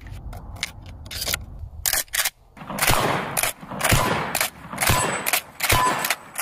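Pump-action shotgun: metallic clicks as shells are pushed into the loading port, then a run of shots with the slide racked between them, sharp reports about every half-second to a second.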